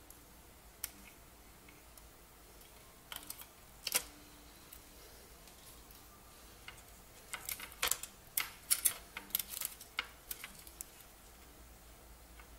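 Small sharp clicks and taps from hands working on a computer keyboard's plastic membrane and its metal backing plate: a few about three seconds in, then a quick run of clicks a little past halfway.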